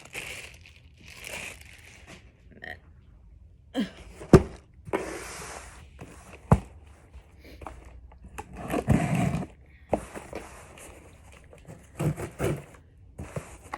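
Packaging and potted bulb kits being handled: irregular rustling and scraping with a few sharp knocks, the loudest about four seconds in and another near six and a half seconds.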